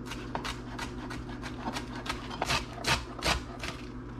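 Knife dicing lettuce on a cutting board: a quick run of about a dozen uneven chops, roughly three a second.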